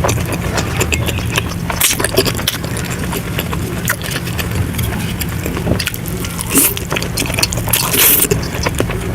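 Close-miked eating sounds of fried eggs being chewed: dense wet mouth clicks and smacks, with a few louder, hissier smacks about two, six and a half and eight seconds in.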